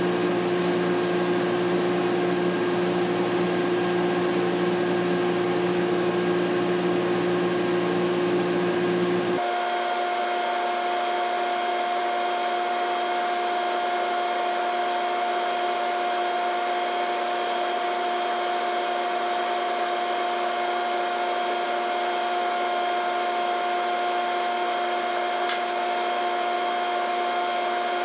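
Steady mechanical whir, like a fan or blower running, made of several fixed tones over a hiss. About nine seconds in, its tone changes abruptly to a higher, thinner hum.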